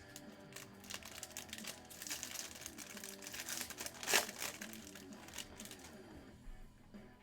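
Plastic wrapper of a baseball card pack crinkling as it is handled and opened, with the sharpest crackle about four seconds in. Quiet background music underneath.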